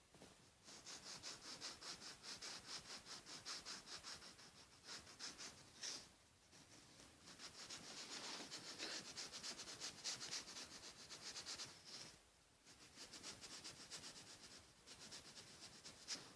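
Faint, quick back-and-forth strokes of a colouring tool shading on paper. They come in two longer runs with short pauses between, then a few scattered strokes near the end.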